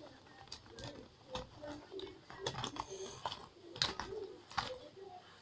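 Pens and pencils lightly clicking and rattling against each other as they are handled and pulled out of a zip pencil case: a scatter of soft, irregular clicks.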